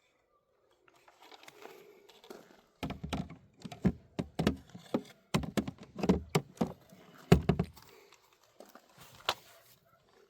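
A string of irregular knocks and thuds with some clatter and rustling, as things are handled and set down.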